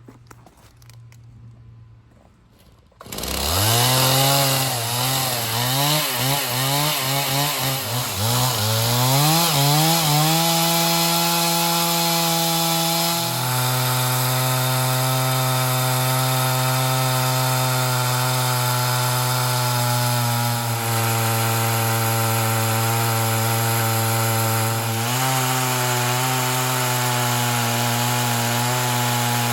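Chainsaw on an Alaskan chainsaw mill starting about three seconds in, revved up and down several times, then held at high throttle. About thirteen seconds in its pitch drops and settles as the bar bites into the pine log, running steadily under load while milling a 2-inch slab.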